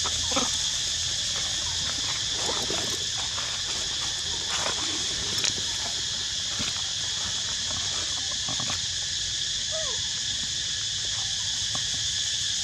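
Steady high-pitched insect buzzing, with scattered rustles and crackles of dry leaf litter as monkeys move over the ground and pick through the leaves.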